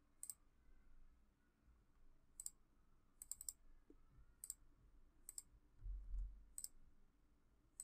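Faint computer mouse clicks, about eight of them a second or so apart, some in quick pairs, over near silence. There is a brief low rumble a little before six seconds.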